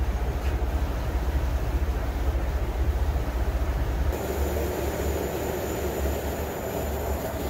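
Steady low mechanical rumble with an even rush of air from spray-painting equipment at work. About four seconds in, it gives way to a steadier, plainer hum.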